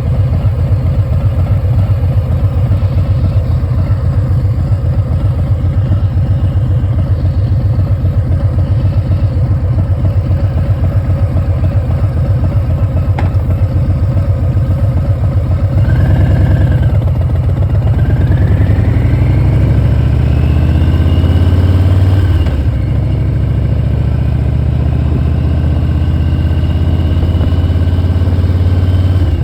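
Harley-Davidson Milwaukee-Eight V-twin with a Vance & Hines Big Radius exhaust, running at low, even revs, then accelerating about halfway through. A thin high-pitched whine rises in pitch with the engine as it speeds up and then holds steady near the end.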